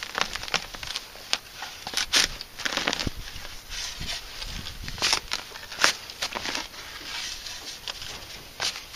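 Shovel blade chopping into grass sod and soil, a handful of irregular strokes, each a short crunch of cutting roots and dirt.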